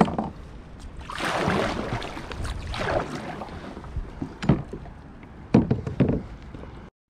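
Kayak paddle strokes: the paddle blades swishing and splashing through the water in a few strokes, with several sharp knocks near the end. The sound cuts off suddenly just before the end.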